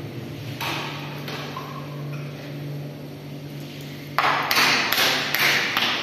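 Small chrome tap being worked by hand into its fitting on a tiled ledge: a steady low hum, then from about four seconds in a run of loud, harsh scraping, hissing sounds.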